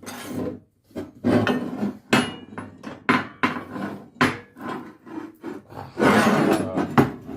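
Irregular metal knocks and clanks of hand tools working on the steel legs and bolts of a log splitter, with a longer scraping rattle about six seconds in.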